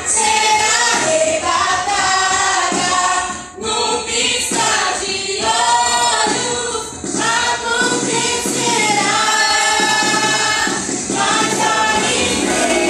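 Group of voices singing a worship song together with music underneath, pausing briefly about three and a half seconds in.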